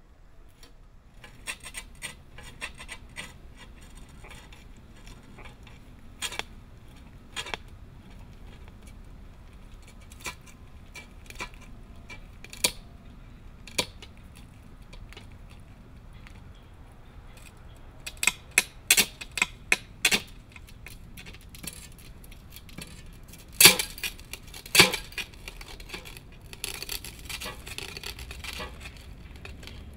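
Mirror panels clinking and cracking under bare feet: scattered sharp clicks, with two loud bursts of cracks about two-thirds of the way in and a denser crackling near the end.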